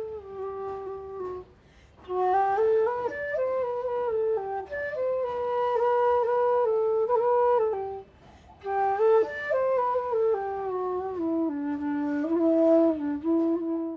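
Background music: a solo flute playing a slow melody in phrases, with two short breaks, about two seconds in and about eight seconds in.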